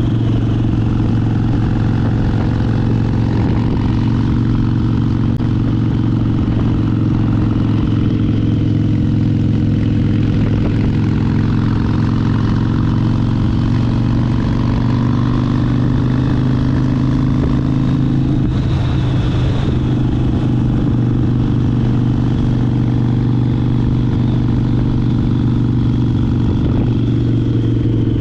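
Harley-Davidson Sportster 72's 1200cc air-cooled V-twin engine running at a steady pitch while riding.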